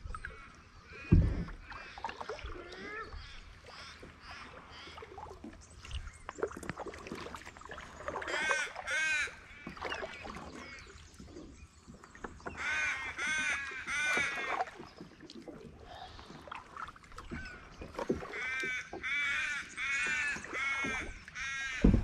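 Crows cawing in three bouts of repeated, drawn-out arching caws, over the soft splash and drip of kayak paddle strokes. A single sharp thump about a second in.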